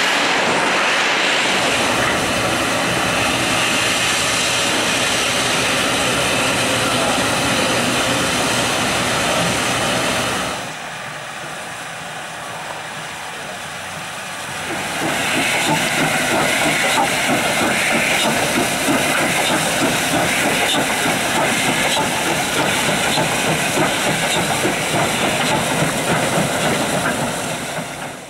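South African Railways Class 19D steam locomotive hissing with escaping steam. The hiss drops lower about a third of the way in, then comes back loud again with a fast rough texture.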